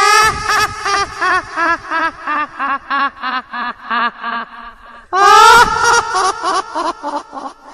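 A high-pitched, eerie cackling laugh used as a horror sound effect: a long run of short "ha" notes, about three or four a second, that slowly fall in pitch and slow down. About five seconds in, a second laugh starts with a loud long high cry and breaks into quicker notes.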